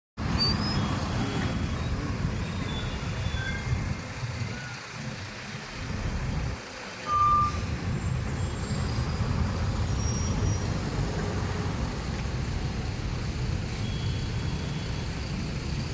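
Highway traffic dominated by trucks: a steady rumble of heavy engines, with a few short high beeps scattered through it.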